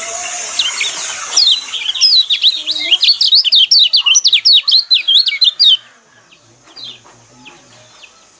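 Fast, loud chattering bird song of rapid high notes darting up and down in pitch, typical of a white-eye (pleci) used as a lure sound to provoke a white-eye into singing. It runs for about four seconds over a background of many birds, then breaks off, leaving only faint scattered calls.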